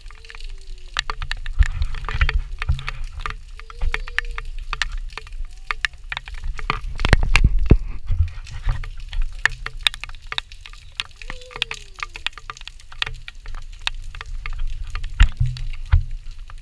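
Rain falling, with many sharp irregular taps of drops striking close by, over a steady low rumble; a louder burst of dense tapping comes about seven seconds in. A toddler makes a few short high-pitched babbles.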